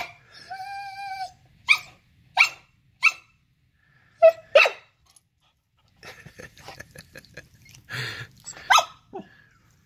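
Siberian husky puppy barking to get an older dog to play: a short pitched whine-howl near the start, then a string of sharp single barks spaced about half a second to a second apart, with more barks near the end.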